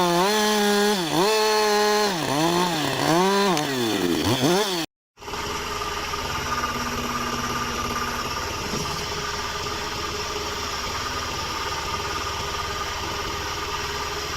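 Two-stroke chainsaw running at full throttle through a log, its pitch dipping and recovering four or five times as the chain loads up in the wood. It cuts off suddenly about five seconds in, and a steady, quieter engine hum follows.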